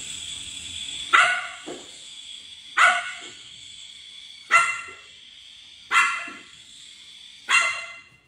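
Small puppy barking, five sharp barks about one and a half seconds apart, over a faint steady high-pitched tone.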